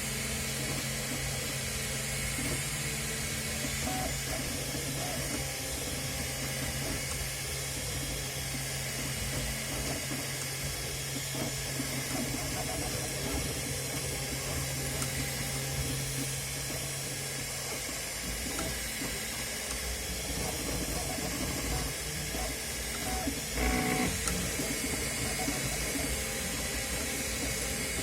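3D printer running, its stepper motors whining in shifting tones over a steady fan hiss. A low hum drops out about two-thirds of the way through, and a short, louder whine comes near the end.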